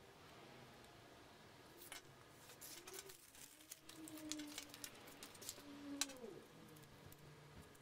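Crinkling and crackling of a thin clear plastic package being handled, a run of small crisp clicks that ends in one sharper snap. Faint low humming tones sound under it in the middle.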